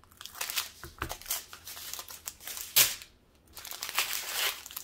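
Small plastic bags of diamond painting drills crinkling as they are handled and cut from a strip with scissors, with one louder crackle about three seconds in.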